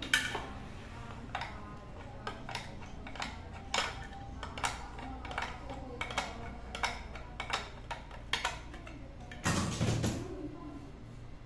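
Pressure cooker's metal lid and pot being handled and tapped: a scatter of light metallic clicks and knocks, with a louder clatter about ten seconds in.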